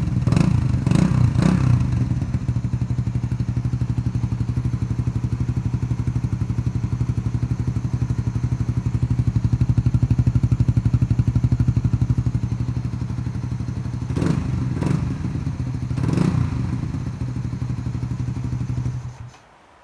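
Suzuki Satria 150's single-cylinder four-stroke engine idling through its exhaust, blipped sharply three times near the start and three more times a few seconds before the end, then switched off just before the end.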